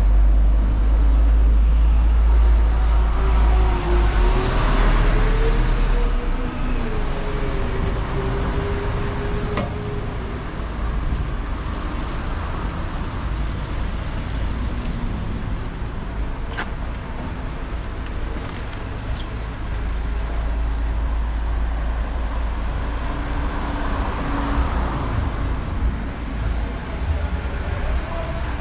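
City street traffic: motor vehicles passing, with a heavy engine rumble in the first few seconds whose note rises and falls, and another vehicle swelling past near the end.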